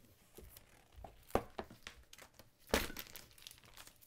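Paper pages of a book being handled and turned: crinkling rustles, with two louder page flips, one a little over a second in and one near three seconds.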